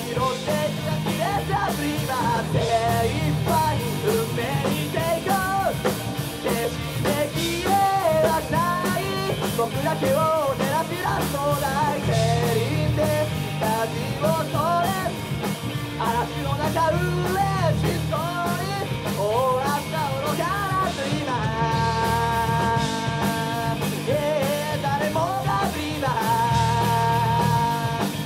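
Live rock band playing a song: a sung lead vocal over electric guitars, bass guitar and drums, with long held notes toward the end.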